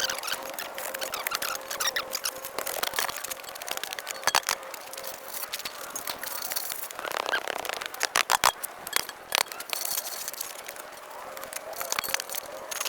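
Shovel work in dirt: irregular scrapes and sharp knocks of a shovel blade, with a cluster of quick knocks about two-thirds of the way through.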